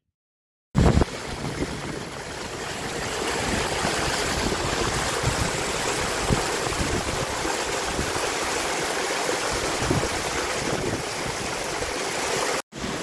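Small, steep hillside stream rushing over rocks and grass, a steady rush of running water. It starts about a second in and cuts out briefly near the end.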